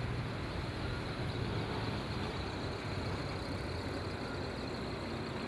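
Steady low rumble of vehicle traffic, even and unbroken.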